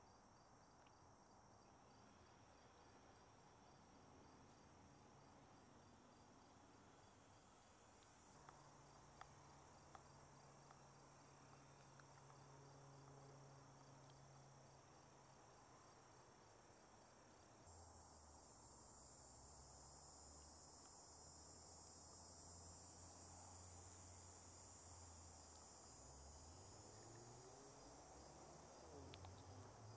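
Faint, steady high-pitched chorus of insects, growing a little stronger about two-thirds of the way through, over a faint low hum.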